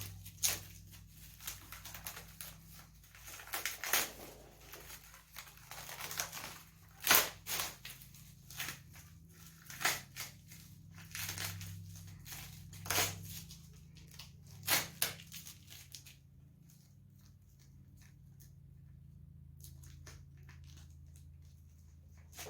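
Masking tape and paper being peeled and crumpled off freshly painted parts: irregular tearing, crinkling and sharp clicks of handling, over a steady low hum. The crinkling dies away about three-quarters of the way through, leaving mostly the hum.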